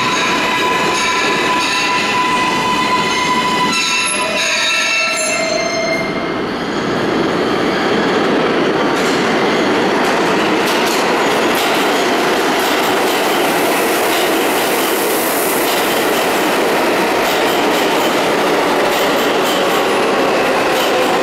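R142A subway train pulling into a station: steady pitched tones with overtones for the first few seconds, then an even, loud rush of wheel and rail noise as the cars run along the platform.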